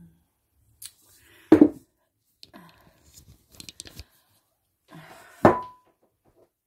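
Stainless-steel stand-mixer bowl knocked down onto the work surface as it is handled and turned upside down: two sharp knocks about four seconds apart, the second leaving a short metallic ring, with light clinks of handling between.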